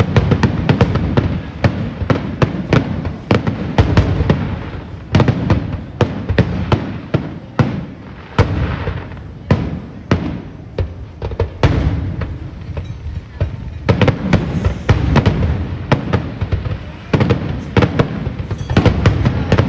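Fireworks display: a dense, continuous barrage of sharp bangs and deep booms, several a second.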